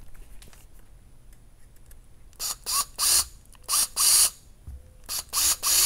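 Cordless drill/driver driving a small screw into a plastic RC chassis part in a series of short trigger pulses. The motor whirs briefly and stops about eight times, in quick groups from a couple of seconds in.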